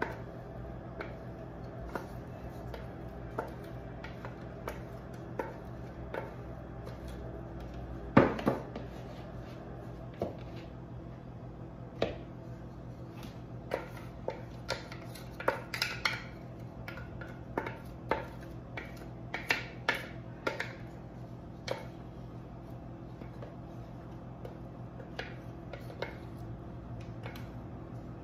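Wooden spatula scraping and knocking against the inside of a food processor bowl as a minced mushroom mixture is scraped out into a mixing bowl. Irregular taps and scrapes, loudest about eight seconds in and busiest between about 14 and 21 seconds, over a steady low hum.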